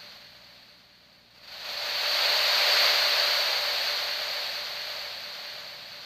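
A mobile phone's speaker playing a hissing sound-effect ringtone: a rush of noise that swells up about a second and a half in, then slowly fades away.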